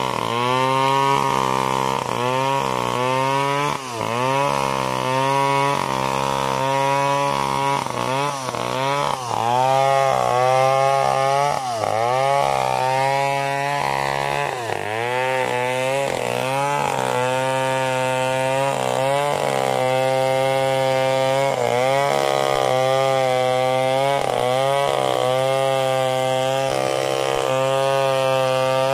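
Two-stroke STIHL gasoline chainsaw cutting into a felled coconut palm trunk. The engine pitch dips and rises again every second or so as the chain loads and frees, then settles into a steadier cut in the second half.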